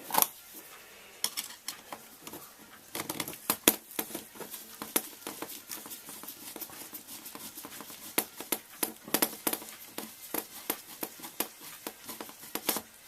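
Irregular clicks, taps and light rattling of small tools and RC buggy suspension parts being handled, with soft rustling in between.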